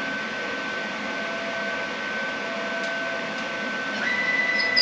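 Steady electrical whine with a hiss from a powered-up CNC plasma table. About four seconds in, a second, higher whine joins and the sound gets a little louder as the table's stepper motors jog the gantry.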